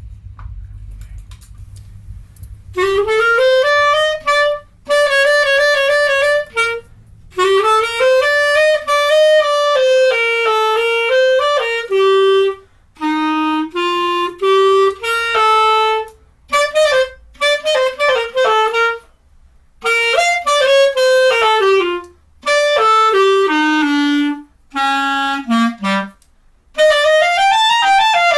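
A single wind instrument playing a slow melody in short phrases with brief breaks between them, the pitch rising and falling; only a low rumble is heard before it comes in about three seconds in.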